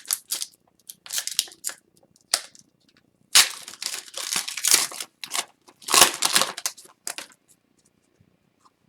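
Upper Deck hockey cards and their pack wrappers being handled: irregular rustling, crinkling and sliding, with two louder stretches around the middle.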